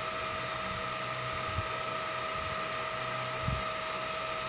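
Steady fan-like background hiss with a faint, even high whine, and two soft knocks, about a second and a half in and again about three and a half seconds in.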